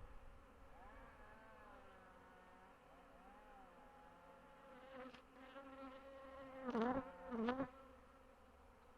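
Honeybees buzzing at a hive entrance, individual bees flying past so their buzz bends up and down in pitch. Two louder close passes come about seven seconds in.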